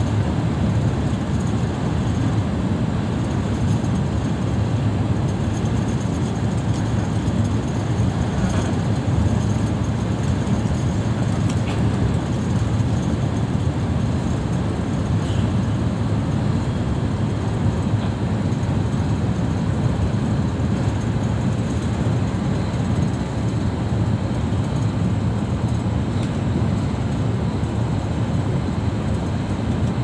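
Steady, deep road and engine rumble inside a vehicle travelling at motorway speed: tyre noise and the drivetrain heard through the cabin.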